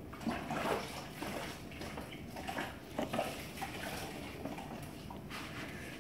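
A sponge being rinsed and wrung out in a bucket of water: irregular splashing and dripping, loudest about half a second in and again about three seconds in.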